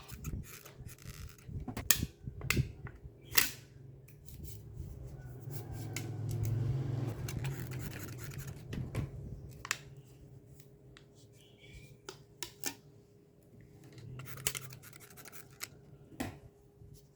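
Scissors cutting aluminium beer-can sheet: a series of sharp snips, with a low hum swelling and fading in the middle.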